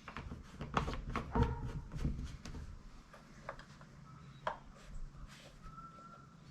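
Scattered clicks and knocks of objects being handled and set down, busiest in the first couple of seconds and sparser after, with a brief faint whistle-like tone near the end.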